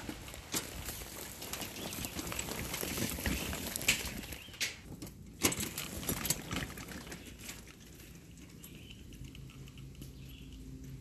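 Boot footsteps and the wheels of a loaded wire-mesh garden cart crunching and rattling over a path of wood chips; the crackling passes close by, then fades after about seven seconds as it moves away.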